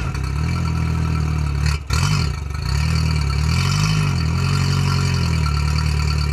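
Outboard motor idling steadily while it is flushed on muffs, with fresh water from a garden hose running through its cooling system to rinse out salt after sea use. The pitch wavers slightly a couple of times.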